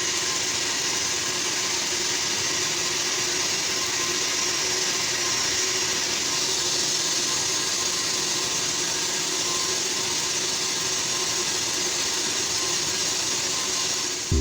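Stick-welding (SMAW) arc on steel pipe, a steady sizzling hiss that holds evenly throughout, with a faint hum beneath it.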